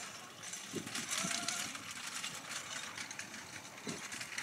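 A pair of horses pulling a four-wheeled marathon carriage at a trot over grass: soft, irregular hoofbeats and the rattle of the carriage and harness.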